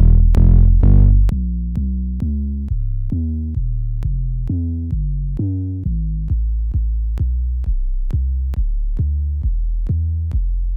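Reggaeton bass samples from a sample library auditioned one after another: short pitched bass notes, each starting with a sharp click, about two to three a second, changing pitch and tone from note to note. A louder, brighter set gives way to softer ones about a second in.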